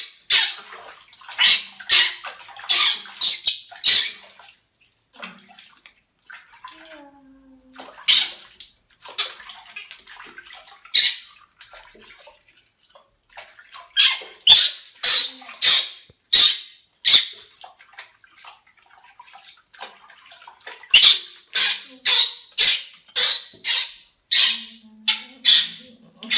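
Water splashing in a bathroom washbasin in repeated short bursts as a baby monkey is washed by hand, with the baby monkey's high cries among them.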